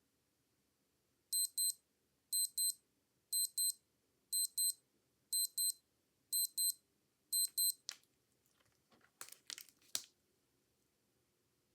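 Old digital wristwatch alarm beeping in quick double beeps, seven pairs about a second apart, followed by a few sharp clicks.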